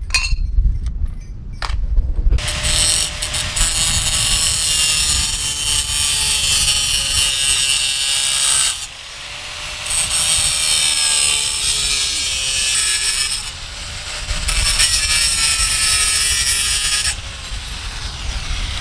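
Angle grinder cutting through square steel tubing, in three runs of a few seconds each with short pauses between, the motor whining under the cut. A few clicks of the metal pieces being handled come first.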